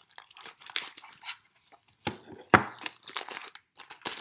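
Plastic wrapping crinkling and tearing in short irregular bursts as it is pulled off a small sign board, with one louder, sharper sound about two and a half seconds in.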